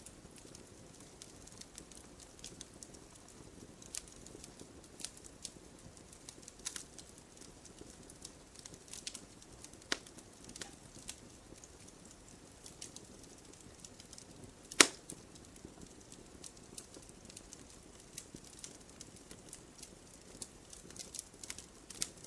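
Wood campfire crackling: soft hiss of burning with sporadic sharp snaps and ticks, and one loud pop about fifteen seconds in.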